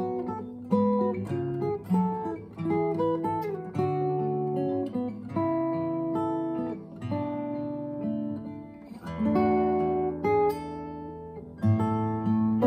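Steel-string acoustic guitar played fingerstyle: a melody of plucked single notes ringing over bass notes, with a louder, fuller chord near the end.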